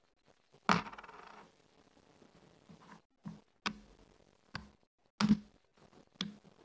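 Backgammon checkers being moved and set down on a wooden backgammon board: about half a dozen sharp clacks with pauses between them, the first and loudest with a brief rattle after it.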